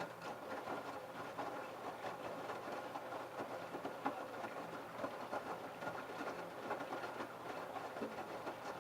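LG F1222TD direct-drive washing machine drum turning through a prewash tumble, the wet load tumbling and water sloshing with a busy clatter over a steady motor hum.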